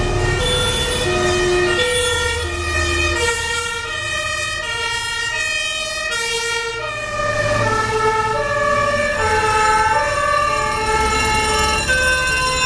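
Fire engines' two-tone sirens sounding as they pass, alternating between two pitches about every half second over low diesel engine rumble. About seven seconds in the pair of pitches changes as a second truck's siren takes over.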